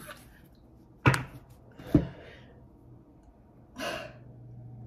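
Two light knocks about a second apart, then a brief rustle near the end, as of things handled on a table.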